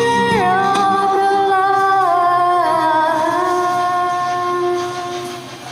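A woman's voice singing long held notes into a karaoke microphone. The pitch steps down a few times, and the last note fades out near the end.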